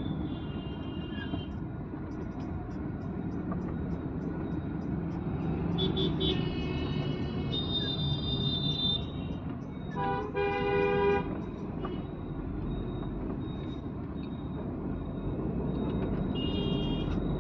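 Steady road and engine noise inside a moving car in city traffic, with other vehicles' horns honking several times. The loudest is a horn of about a second, roughly ten seconds in.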